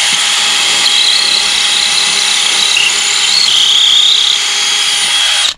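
Power drill with a concrete bit boring a hole into a concrete foundation for a Tapcon anchor screw. It runs loud and steady with a high whine, then cuts off suddenly about five and a half seconds in.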